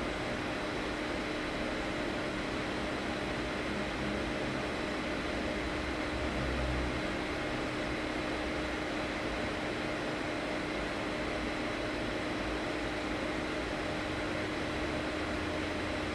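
Steady machine hum and hiss, with a constant low tone and fainter higher tones, unchanging throughout.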